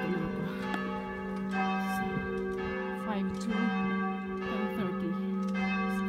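Church tower bells ringing for Sunday service: several bells struck over and over, roughly one new strike a second, their tones overlapping into a steady ringing.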